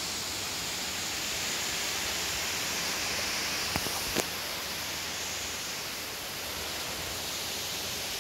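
Steady rushing of flowing water from a stream or waterfall, with two short clicks a little under halfway through.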